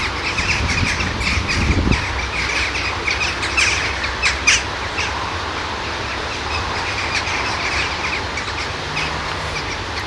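Small birds chirping and squawking in quick, irregular runs over a low, steady rumble.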